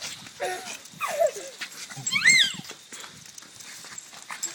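Small Yorkshire terriers making short whines during play, then one high yelp about two seconds in that rises and falls in pitch and is the loudest sound.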